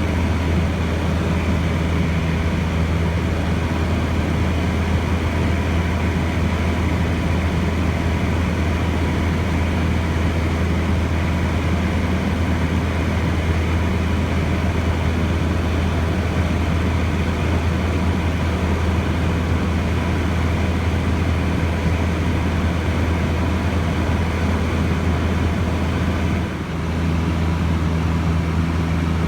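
Cessna 150J's Continental O-200 four-cylinder engine and propeller in flight, a steady low drone that dips briefly near the end.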